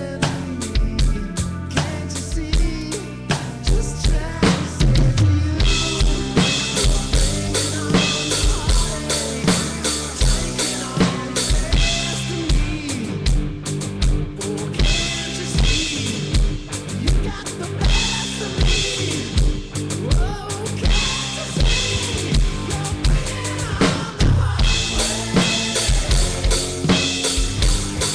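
Yamaha DTX electronic drum kit played in a steady rock beat, with kick, snare and cymbal sounds from the drum module, over a recorded rock song played along with.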